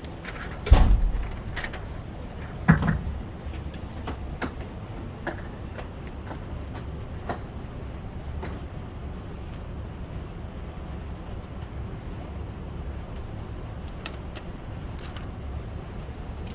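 Two handgun shots about two seconds apart, over a steady low hum, followed by a few fainter clicks and knocks.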